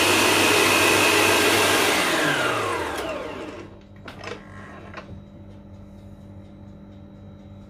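Kenwood Chef stand mixer running fast with its balloon whisk, then switched off and winding down, its whine falling in pitch over about a second and a half. A few sharp clicks follow as the mixer head is unlocked and tilted up.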